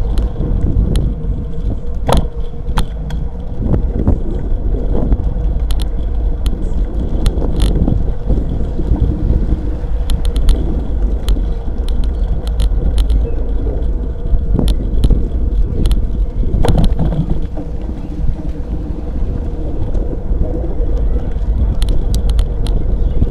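Low wind noise on the microphone of a bicycle-mounted action camera, with tyres rolling on rough asphalt, and scattered clicks and rattles from the road bike as it rides over the surface.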